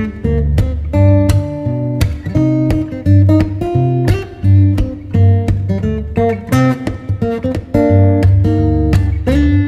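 Background music: acoustic guitar picking and strumming notes over a steady bass line.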